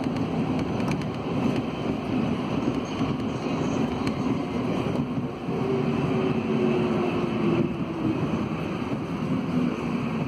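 Running noise of an Alsthom NS 74 rubber-tyred metro train heard from inside the car while it moves through a station: a steady rumble, with a slightly falling whine for a couple of seconds midway.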